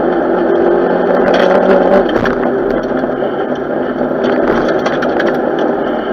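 In-cabin sound of a Renault 5 GT Turbo's turbocharged four-cylinder engine running hard at speed, its note changing about two seconds in. Road noise and clicking rattles from the stripped cabin run through it.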